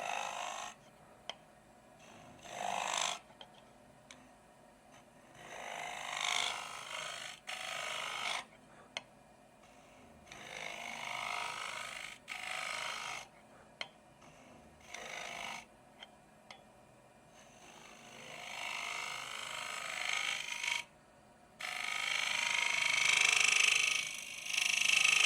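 A turning tool cutting into a wooden bowl spinning on a lathe, in a series of short passes with pauses between them. The last two passes, near the end, are the longest and loudest.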